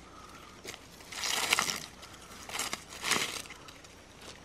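Dry leaf litter and loose soil rustling and crunching under a hand rummaging through the ground, in a few short bursts.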